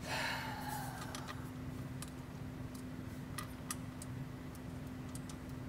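Small metallic clicks and taps from nuts being threaded and turned by hand onto bolts of an auxiliary power unit's mounting bracket, with a brief scraping rustle in the first second. A steady low hum runs underneath.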